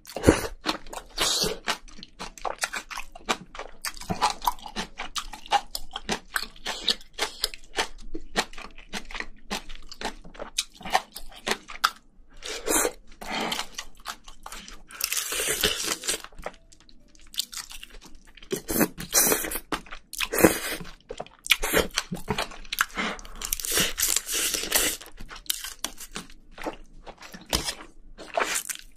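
Close-miked mukbang eating of Korean spicy braised seafood (haemul-jjim) with bean sprouts: crunchy chewing and wet mouth clicks throughout, broken by several longer slurps as strands are sucked in from the chopsticks.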